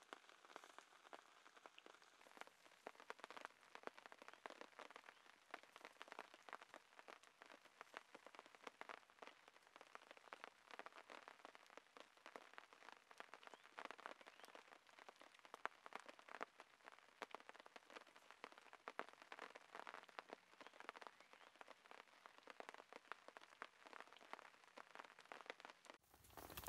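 Faint, dense crackling and ticking of a campfire's hot coals, with pork loin and pineapple roasting over them. Just before the end a louder, steady sizzling hiss sets in.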